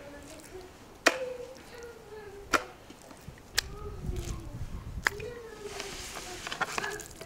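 Salmon steaks being set into a thin metal baking pan: four sharp knocks about a second apart, each followed by a brief ringing of the pan, then a flurry of lighter clatter near the end.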